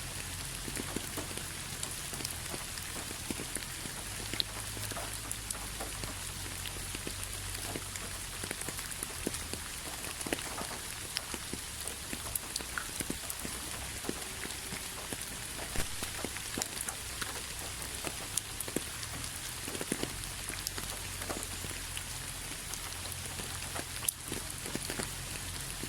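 Steady rain with many individual drops ticking irregularly on a surface, over a low rumble.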